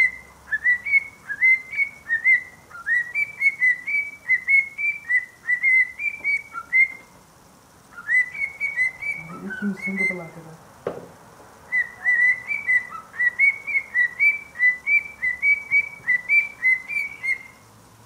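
Cockatiel whistling a repeated phrase of short upward-sliding notes, about two a second, pausing briefly twice. A low voice sounds briefly near the middle, followed by a single sharp click.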